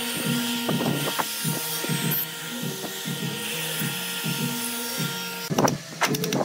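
Handheld electric drill running steadily as it bores into wood. About five and a half seconds in it stops and a mallet starts striking a wood chisel in a few sharp taps.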